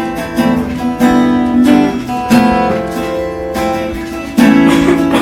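Background music: a strummed acoustic guitar, chords struck in a steady rhythm.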